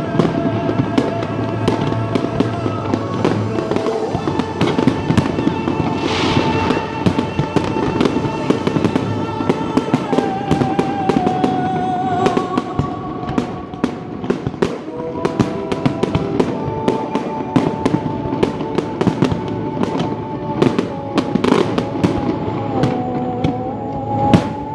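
Fireworks bursting in quick succession, many sharp bangs and crackles a second, with music playing underneath.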